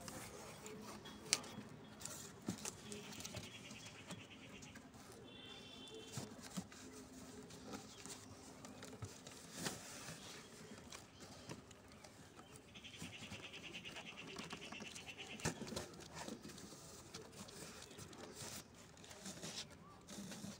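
Cardboard box and the boxed mop inside it being handled: scattered rustles, taps and knocks. Twice, a high, rapidly pulsing animal call lasting a couple of seconds sounds in the background.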